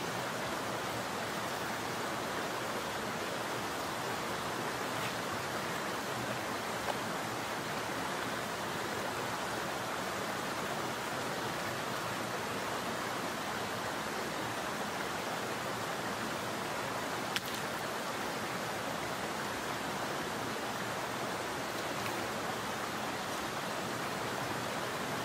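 Steady rushing of a mountain stream running over rocks, with a faint click about seven seconds in and another near seventeen seconds.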